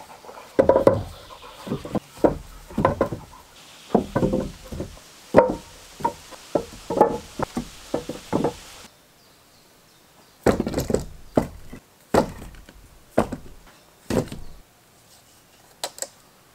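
A tool striking wood again and again in irregular knocks, with a pause of about a second and a half midway.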